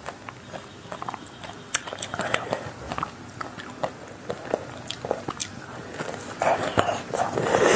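Crisp crackling bites and chewing of a chocolate-coated ice cream bar with a crunchy chocolate shell, picked up by a close clip-on mic. A louder run of crunching comes near the end.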